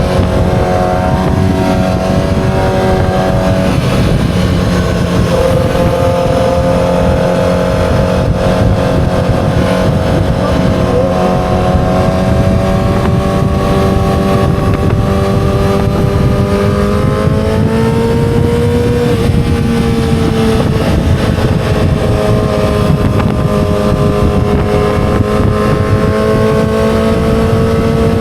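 2007 Yamaha R6's inline-four engine running at steady revs under heavy wind rumble, as when cruising. Its pitch rises a little about two-thirds of the way through, then eases back and holds.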